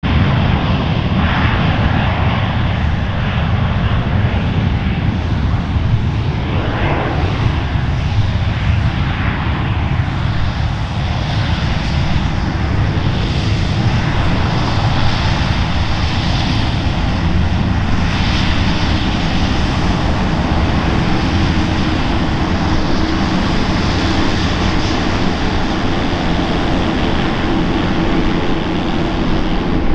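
Engines of a twin-engine business jet running at takeoff power: a steady, loud rushing noise with a deep rumble underneath.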